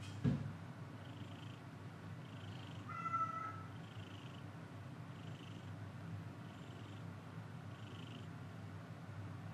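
A cat purring steadily, with a short knock just after the start and a single brief high kitten mew about three seconds in.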